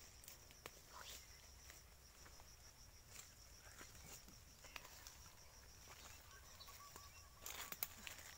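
Faint woodland ambience: a steady high-pitched insect buzz with scattered soft crackles, then footsteps on dry leaf litter near the end.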